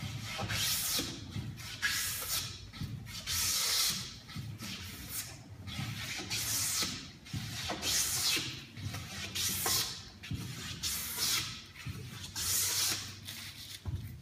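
Hand plane taking shavings off a board, a long series of hissing strokes about one every second or so, the freshly sharpened, slightly crowned blade cutting cleanly.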